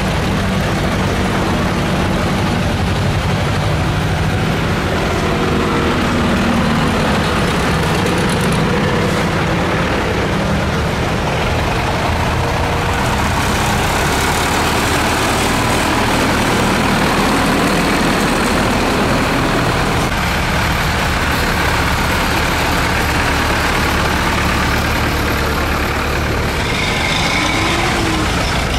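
Several tractor diesel engines running steadily as a Steyr, a John Deere, a Zetor 7011 and a vintage blue Zetor drive past one after another.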